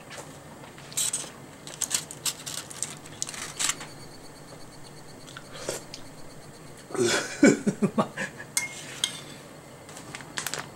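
Utensils clicking against a ceramic bowl and crinkling the aluminium foil lining it, as foil-baked mushrooms are moved about. The clicks come in short clusters, the busiest and loudest about seven seconds in.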